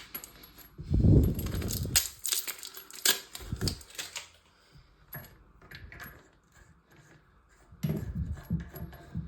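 Scattered clicks, taps and light metallic rattles of a toilet supply line and its coupling nuts being handled and fitted by hand, with a brief rustling rub about a second in.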